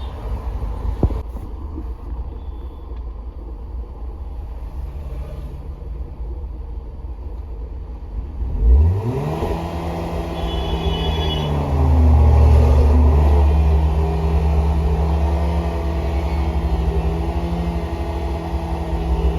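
Maruti Suzuki car engine with a misfire, running low at first, then revved up about nine seconds in and held at a raised speed. The pitch dips briefly before settling.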